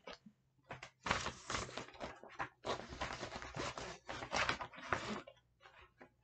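Handling noise of craft supplies being moved about on a desk: a quick run of short, irregular rustles and scrapes that stops about five seconds in.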